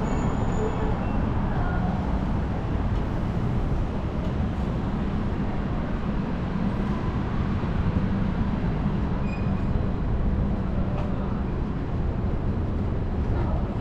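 Steady low rumble of downtown vehicle traffic.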